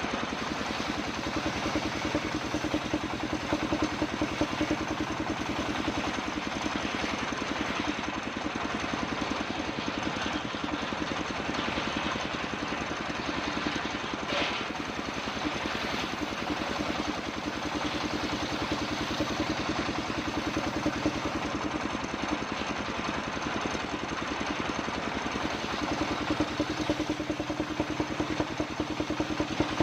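Engine-driven homemade circular sawmill running steadily with a fast even beat, with one short sharp sound about halfway through.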